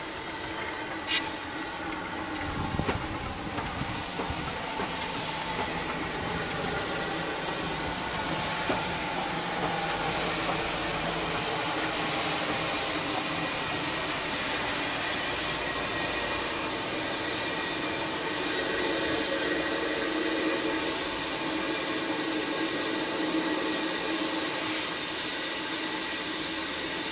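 BR Class 2MT tank steam locomotive (41312) and its coaches moving slowly along the track: a steady hiss of steam with wheels clattering on the rails, and a single sharp click about a second in.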